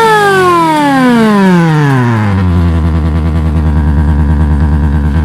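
Speaker-made 'big bike' sound wired to an underbone motorcycle's rectifier, its buzzy tone following engine speed: it falls in pitch for about two and a half seconds as the revs drop, then settles into a low, steady pulsing at idle.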